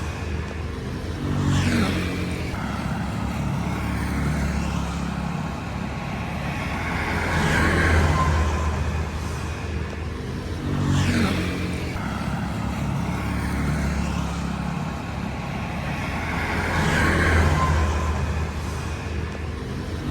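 Street traffic: motor vehicle engines running, with vehicles passing and their pitch falling as they go by. The same stretch of sound comes round about every nine and a half seconds.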